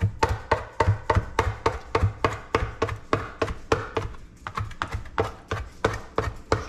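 Kitchen knife chopping cooked clams on a collapsible cutting board: quick, even knocks of the blade on the board, about four a second, with a short pause around the middle.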